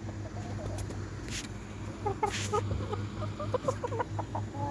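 Chickens clucking softly, a scatter of short clucks that grows busier about halfway through, over a steady low hum.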